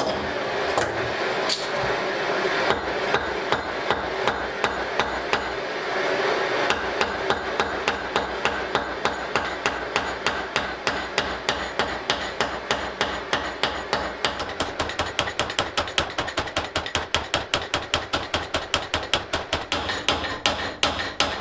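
Hammer beating over the end of a heated steel rivet to fill a countersink, a long run of sharp metallic blows, a couple a second at first and getting quicker toward the end. Under it a gas blowtorch roars steadily, loudest in the first few seconds.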